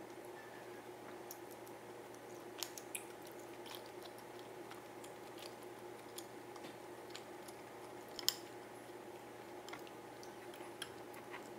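A person chewing soft, chewy food (cheese-filled rice cake and fish cake), with scattered light clicks and taps of chopsticks and wooden skewers on dishes over a steady background hum. The sharpest click comes about eight seconds in.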